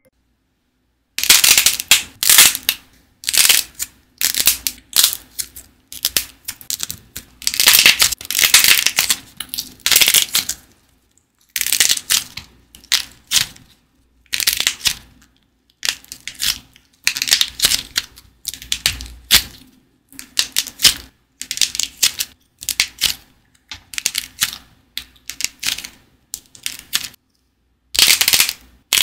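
Glossy-coated dried clay figures being bent and crushed by hand: runs of crisp crackling as the hardened coating and clay crack and crumble, with short pauses between runs, starting about a second in.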